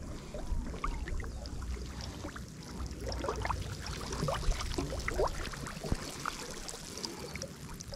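Water sloshing and splashing, with a quick run of small gurgles and plops in the middle.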